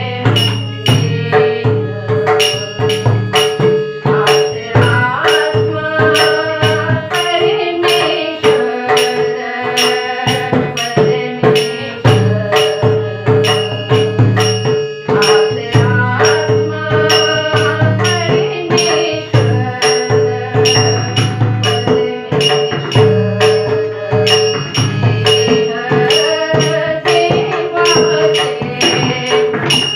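Woman singing a Marathi abhang (devotional bhajan) to a harmonium, which holds a steady drone note under the melody. Jingling percussion keeps a steady beat of sharp metallic clicks throughout.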